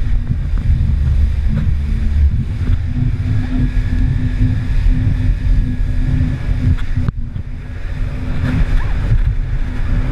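Jet ski engine running steadily under way, a constant drone beneath heavy wind buffeting on the microphone and rushing water. There is a brief sharp drop-out about seven seconds in.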